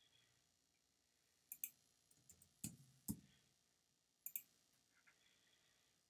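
Computer mouse buttons clicking: a quick double click about one and a half seconds in, a few more clicks between two and three seconds in, another double click a little past four seconds, and two lighter clicks around five seconds, over faint room tone.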